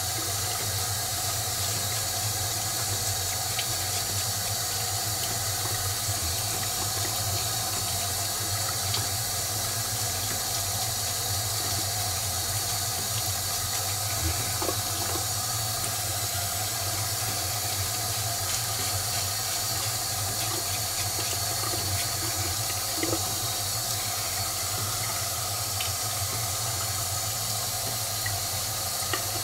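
Bathroom sink tap running, a steady, even rush of water.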